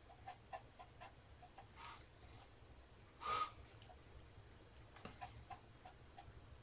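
Faint scratching and ticking of a soft B pencil lead drawing short strokes on heavy watercolour paper. About three seconds in, a brief breathy hiss with a faint whistle is the loudest sound.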